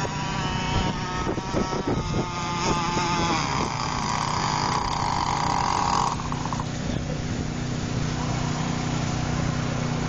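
Radio-controlled racing boat's engine running at a high-pitched, insect-like whine as the boat speeds past. The whine grows stronger and then cuts off abruptly about six seconds in, leaving a low steady hum.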